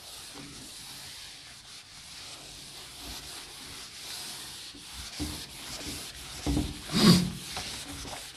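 Rubbing and scratching sounds, with a few soft knocks and a louder thump about seven seconds in.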